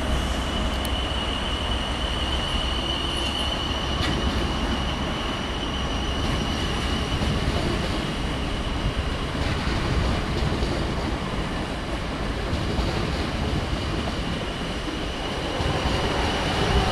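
Diesel High Speed Train with Class 43 power cars pulling away along the line, its deep engine rumble and rail noise thinning over the first several seconds. A steady high squeal sounds in the first few seconds.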